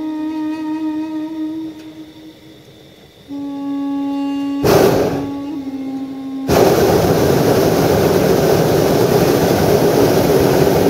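Background flute music with long held notes. About four and a half seconds in, a hot-air balloon's propane burner fires a short blast. From about six and a half seconds it fires continuously, a loud steady roar that starts abruptly over the music.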